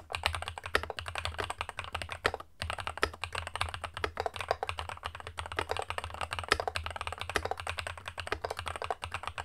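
Fast continuous typing on an Epomaker Brick 87 mechanical keyboard fitted with Epomaker Wisteria linear switches and PBT keycaps: a dense run of keystroke clicks, with a brief pause about two and a half seconds in.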